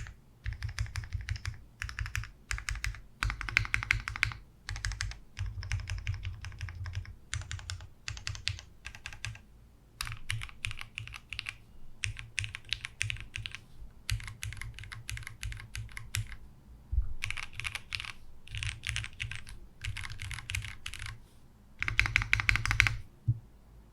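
Polaris custom mechanical keyboard with lubed Cherry MX Black Hyperglide linear switches on a polycarbonate plate and original Cherry G80-1800 keycaps, typed on in short rapid flurries of keystrokes with brief pauses between them. The loudest, densest flurry comes near the end.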